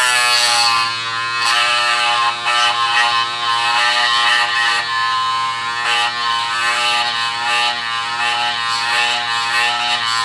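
SLITE 18 W mini linear electric sander pen buzzing steadily, its triangular corner pad moving side to side as it sands a plastic model kit part. The buzz wavers a little in loudness as the pad is pressed into the work.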